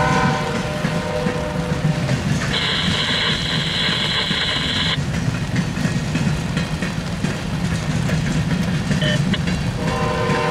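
Freight train of covered hopper cars rolling past with a steady low rumble of wheels on rail. A chord of several steady tones sounds briefly at the start and again near the end, and a steady high squeal comes in for about two and a half seconds in the middle.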